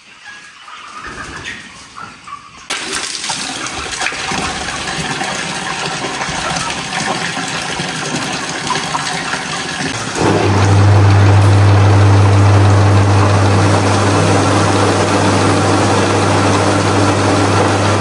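A belt-driven washing pump with an electric motor: a rush of spraying water starts suddenly a few seconds in, and from about ten seconds in the pump runs loudly with a steady low hum under the spray.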